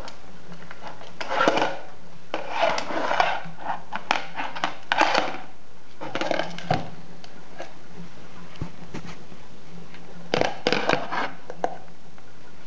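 Yellow hard plastic lid scraping and rattling against a laminate floor as a Sphynx cat paws at it, in several short noisy bursts with pauses between them and a last cluster near the end.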